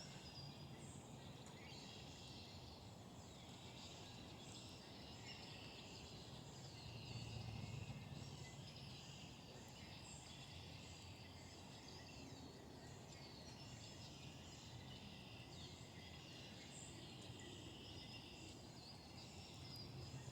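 Faint ambience: distant birds chirping over a low steady hum.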